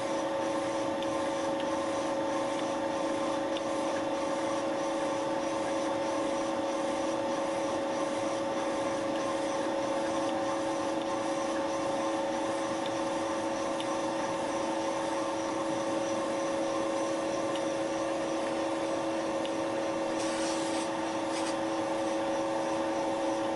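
Thiel Duplex 158 milling machine running at steady speed with a Wohlhaupter UPA5 facing and boring head boring out a plastic bearing seat: an even machine hum with several fixed tones under the cutting noise. A short burst of higher hiss comes near the end.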